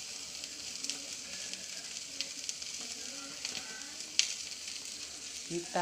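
Fish sizzling on a grill pan, basted with a blended chilli, spice and coconut-milk paste: a steady hiss with scattered pops and crackles, the sharpest about four seconds in.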